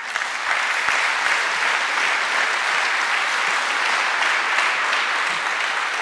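Audience applauding, holding steady and starting to die away near the end.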